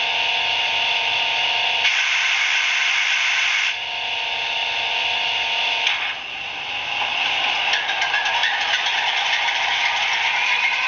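ESU model BR232 diesel locomotive's DCC sound decoder playing a diesel engine running sound through its small onboard speaker. A brighter hiss comes in about two seconds in for a couple of seconds, and about six seconds in the engine sound changes to a denser, rattlier running.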